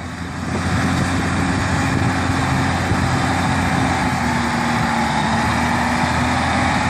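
Caterpillar 621B wheel tractor-scraper's diesel engine running steadily as the machine drives slowly across the field, growing a little louder about a second in.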